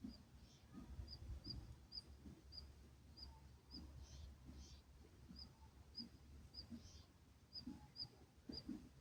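Faint, high, short chirps from a small bird, repeated about twice a second at a steady pitch, with a few brief rustly hisses in between over a low background rumble.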